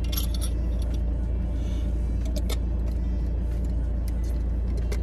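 Car running, a steady low rumble, with a few faint clicks.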